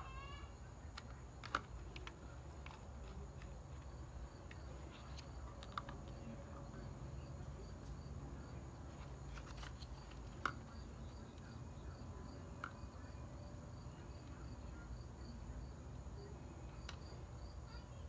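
Quiet handling of a small screwdriver, screws and a hard drive's metal bracket: a few sharp clicks, the loudest about a second and a half in and about ten seconds in, over a low steady hum. A faint high ticking about twice a second runs through the second half.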